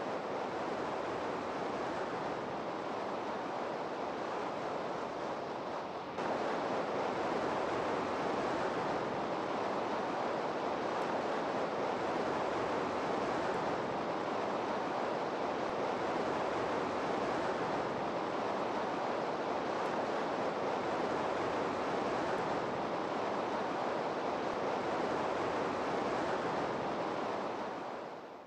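Steady rushing noise with no distinct events, stepping up slightly in level about six seconds in and fading out at the end.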